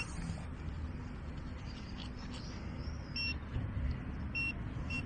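A few short, high-pitched electronic beeps, all at the same pitch, from metal detecting equipment signalling a target, the last one near the end, over a steady low rumble.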